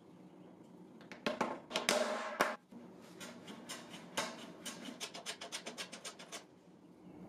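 Hand plane shaving a wooden dutchman key flush with the surface. A few louder, longer strokes come first, then a quick run of short strokes at about four or five a second.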